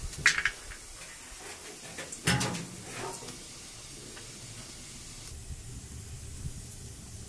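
A steady hiss, with a short clatter at the start and a louder clatter of knocks about two seconds in.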